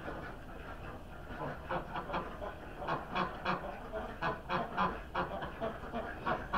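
Ducks quacking in a string of short, rapid calls, starting about a second and a half in.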